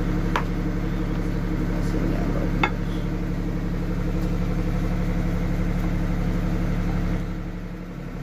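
A steady low mechanical hum, with two light clicks, one about half a second in and one about two and a half seconds in. The hum dips in level near the end.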